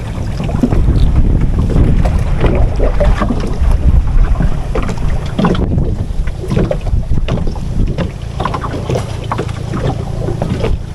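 Steady low rumble of wind buffeting the microphone, with small clicks and rustles of hands handling bait and hook.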